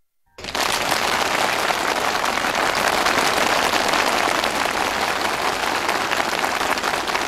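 A crowd applauding, the clapping starting suddenly about half a second in and holding steady.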